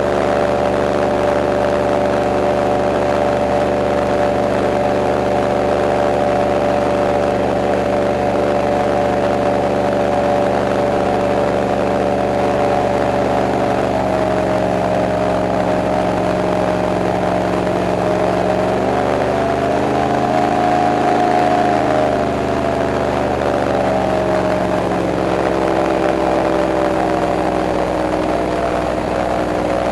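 Airboat engine and propeller running under way, a loud steady drone. The pitch drops slightly about halfway, then rises as the engine speeds up briefly about two-thirds through before settling back.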